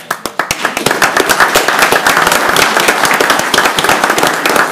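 A roomful of people breaking into applause: a few separate claps at first, then dense, steady clapping within about a second.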